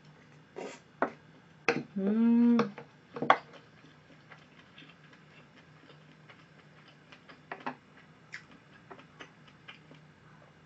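Eating sushi with metal chopsticks: chewing, and small clicks of the chopsticks against the sauce bowl and plate. There is a short hummed "mm" about two seconds in, with a sharp click just after it.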